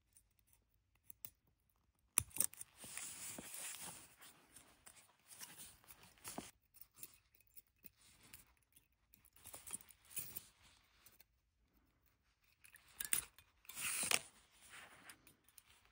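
Metal tweezers clicking and scraping on the thin welded leads of a flatpack IC as they are prised off a test board: a sharp click about two seconds in, then faint scratchy scraping and small ticks, with a louder cluster of scrapes near the end.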